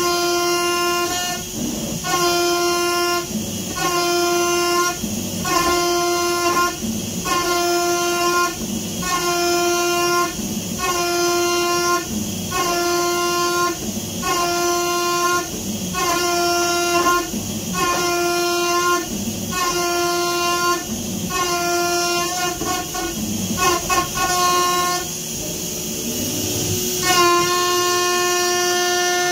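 PrintNC CNC router's axis motors whining through a series of rapid traverse moves, about one a second. Each move holds a steady pitched whine at full speed and breaks off briefly between moves, and one longer move near the end.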